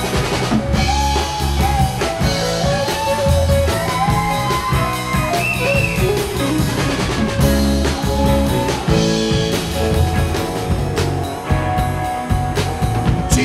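Live rock band playing: a Stratocaster-style electric guitar plays a lead line with notes bending up and down, over bass guitar and a drum kit.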